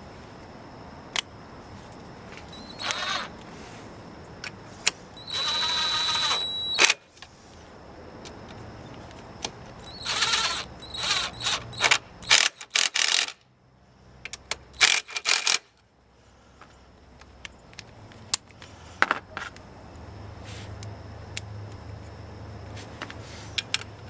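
Ratchet and socket driving bolts home during scooter swing arm assembly: bursts of rapid ratchet clicking with metal clinks and knocks from tools and parts.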